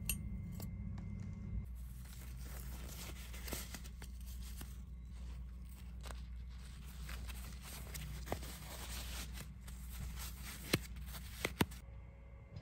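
Close rustling and crinkling as a pair of gardening gloves is handled and pulled on, with a few sharp clicks near the end.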